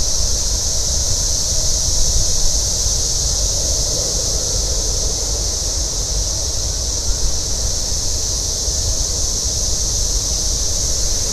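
Wind buffeting the microphone: a steady, uneven low rumble, with a constant high hiss above it.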